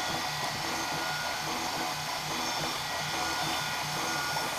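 Central Machinery mini milling machine, converted to CNC, cutting aluminum with an end mill under a compressed-air mist coolant spray. A steady hiss runs throughout, with a low tone that comes and goes about twice a second.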